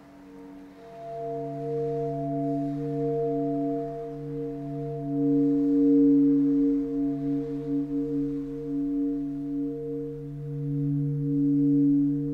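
A loud, low droning hum made of several steady tones at once, swelling and fading in slow waves and wavering briefly a little past the middle, of the kind reported as a mysterious 'strange sound' in the sky.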